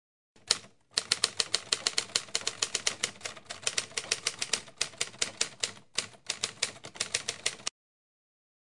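Typewriter keys clacking in a rapid run of key strikes, about six a second, with a brief break about six seconds in, then stopping abruptly; a typing sound effect over on-screen text being written out letter by letter.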